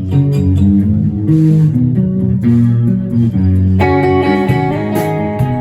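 Rock band instrumental intro: electric guitar over a moving bass line, with a full chord ringing out about four seconds in.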